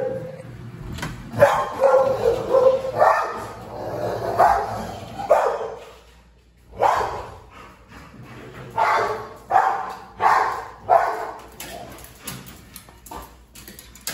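A dog barking and yipping in a series of short barks, with a brief pause about six seconds in before the barking resumes.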